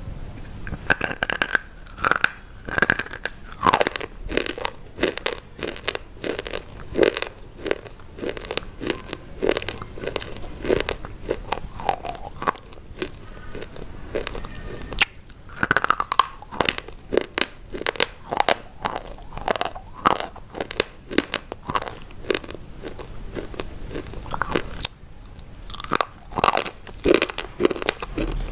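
Close-miked crunching: hard, brittle white sticks are bitten and chewed, with sharp crisp snaps and gritty crunches following one another without a break.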